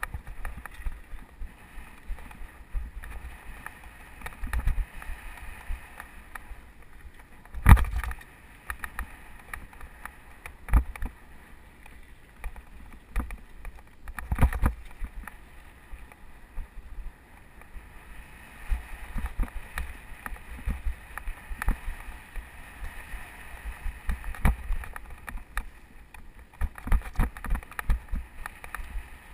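Mountain bike riding over a rough dirt trail: irregular knocks and rattles as the bike jolts over the ground, with wind buffeting the microphone. The hardest jolts come about eight seconds in and again about fourteen seconds in.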